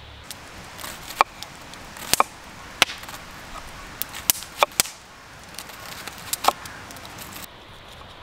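Knife cutting onions: about ten sharp, irregularly spaced taps as the blade goes through and strikes the cutting surface.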